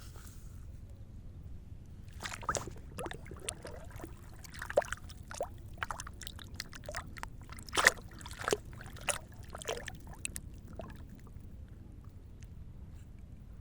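Water splashing and sloshing in an irregular run of splashes, loudest twice in the middle, over a steady low rumble.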